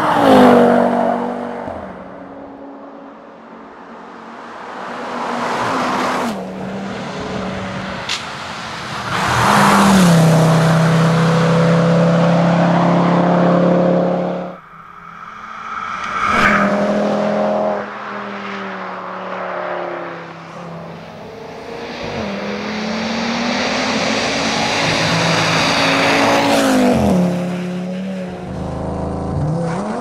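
Audi TT RS rally car's turbocharged five-cylinder engine under hard acceleration as the car passes close by several times. Each pass rises to a peak and then falls in pitch as the car goes by, and the sound cuts off abruptly about halfway through before the next pass starts.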